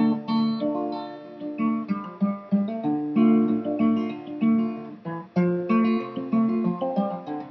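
Solo acoustic guitar picking and strumming the accompaniment to a slow folk ballad, with no voice, in an instrumental break between verses.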